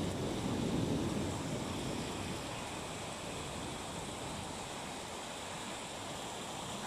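Rain falling steadily, an even hiss, with a louder low rush that swells up and fades over the first two seconds or so.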